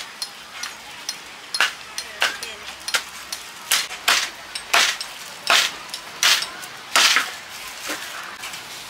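Sharp clinks and knocks of kitchen utensils, about a dozen at irregular spacing, roughly one a second.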